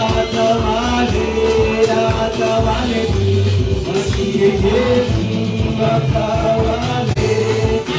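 Church praise-and-worship music: voices singing over a band with a steady bass.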